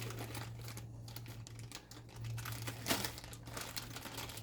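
Packaging crinkling and rustling as items are handled, with irregular sharp crackles over a steady low hum.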